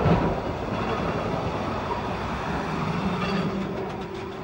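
Electric tram running along street track, its wheel and rail noise steady at first and then fading as it moves away.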